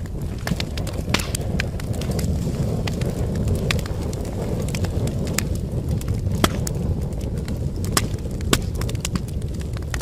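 Wood fire in a fireplace crackling, with frequent small clicks and several sharper pops, over a steady low rumble.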